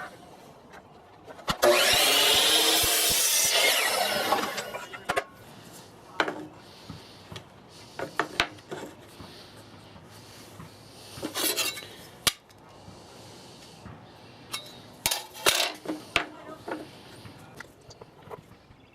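A saw cutting through a small wood block for about three seconds, then scattered knocks and clicks of wood pieces being handled and set down.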